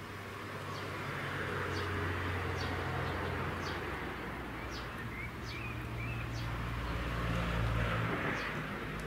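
Low rumble of passing road traffic that swells and fades twice, with a small bird repeating short, high, downward-sliding call notes about once a second.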